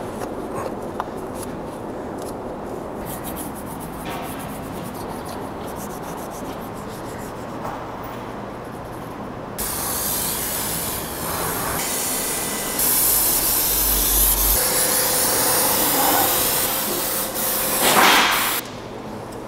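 Spray cleaner hissing hard through a nozzle onto a bare V8 engine block in several long bursts, loudest near the end. Before it, for about the first half, a duller rubbing and handling noise.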